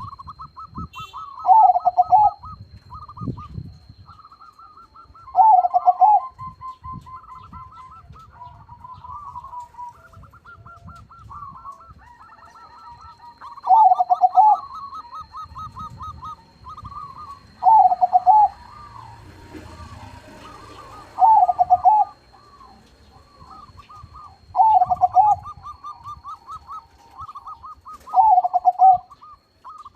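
Crossing perkutut (zebra doves) cooing in their typical song: quick runs of staccato, trilled notes that end in a loud, lower coo, heard seven times. Softer trilled coos carry on between these.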